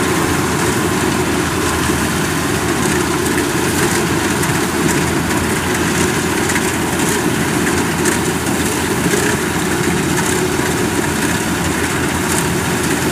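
Kubota DC93 rice combine harvester's diesel engine and threshing drum running steadily under load while it cuts lodged, waterlogged rice.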